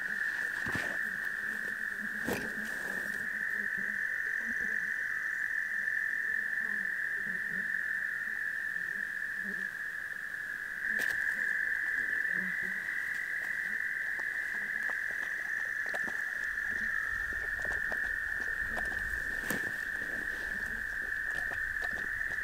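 Continuous chorus of frogs trilling, one steady high-pitched drone. Scattered light clicks and rustles sound over it.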